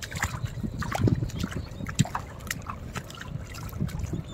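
Footsteps wading through shallow water and mud on a tidal flat: irregular small splashes and clicks over a low rumble.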